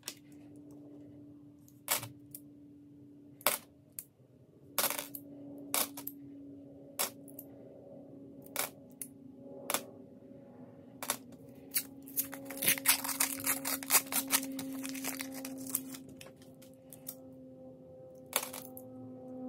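Aluminium-bronze Australian $1 coins clinking against one another as they are handled, in single clicks a second or so apart, with a dense run of clinks about twelve seconds in. A faint low hum sits underneath.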